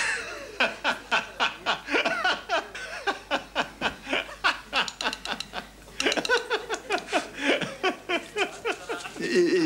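Laughter in quick repeated ha-ha pulses, several a second, with a new round starting about six seconds in.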